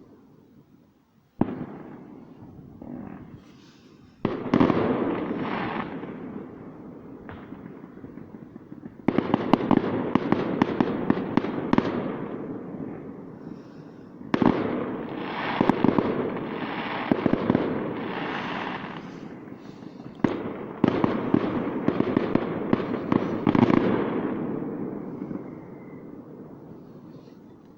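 Distant fireworks displays: single bangs at first, then several long volleys of rapid crackling bursts with echoing tails, dying away near the end.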